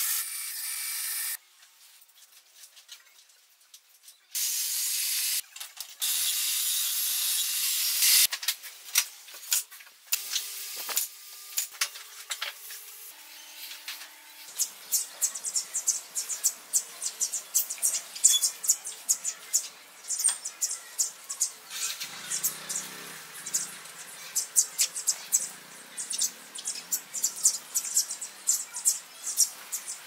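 A band saw cuts wood in three hissing stretches over the first eight seconds, with scattered clicks and knocks after them. From about halfway through, sparrows at a wooden feeder give many short, high chirps, several a second.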